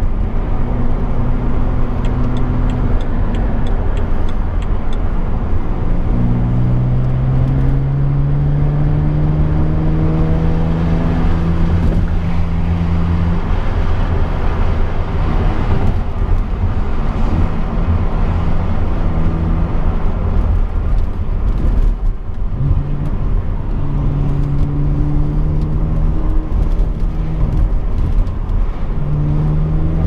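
BMW Z4 35is's twin-turbo straight-six engine heard from inside the cabin while driving: its note climbs steadily for several seconds under acceleration, settles and eases off through the middle, then climbs again near the end, over constant road and wind noise.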